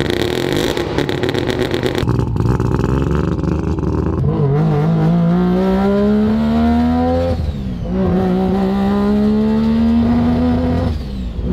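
Street-ported rotary engine of a third-generation Mazda RX-7, first a choppy, uneven rev, then pulling hard with the note climbing steadily. About seven and a half seconds in it drops at an upshift, then climbs again through the next gear.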